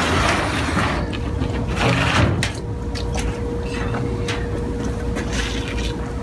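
Handling noise from flexible suction hoses being dragged, rubbed and knocked against a galvanized steel tank: irregular knocks and scrapes over a low rumble, with a steady hum coming in about two and a half seconds in.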